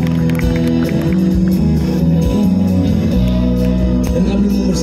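Live rock band playing through the PA, heard from the crowd: guitars holding sustained chords over bass, with the low end swelling about three seconds in.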